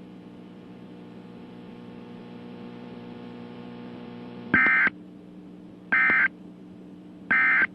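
Steady electrical hum of dead air on a NOAA Weather Radio broadcast, then three short, loud buzzing data bursts about a second and a half apart. They are the EAS/SAME end-of-message (EOM) code that closes the required weekly test.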